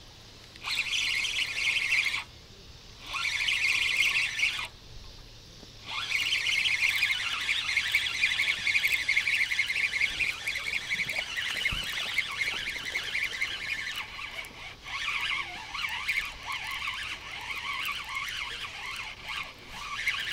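Spinning reel on a feeder rod being cranked under load while a fish is played, a high whirring. It comes in two short spurts, then runs on steadily from about six seconds in.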